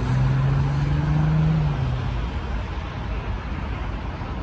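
Outdoor traffic noise with a motor vehicle's engine hum that rises slightly in pitch and fades out about two seconds in.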